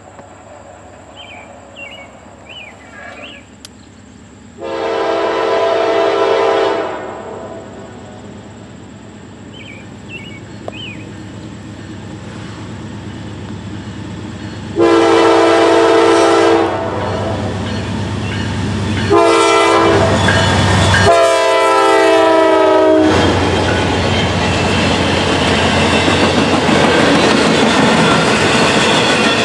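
Norfolk Southern diesel freight locomotive's multi-tone air horn sounding the grade-crossing signal: long, long, short, long, as the train approaches, with the rumble of the train growing louder. After the last blast, empty intermodal cars roll past on the rails with a steady noise. A few bird chirps come before and between the first two blasts.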